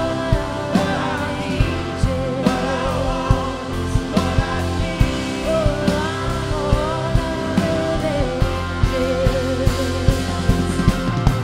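Live indie rock band playing: electric guitar, keyboard, upright bass and drum kit, with a steady drum beat. A woman's voice sings a wavering melody over it.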